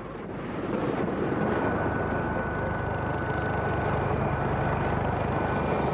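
Helicopter engines and rotor heard from inside the troop cabin: steady dense noise with a thin constant whine and a fast low pulsing of the blades, building over the first second.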